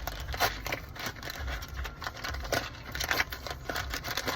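Packaging being torn open and handled: irregular crinkling and crackling with dull handling bumps.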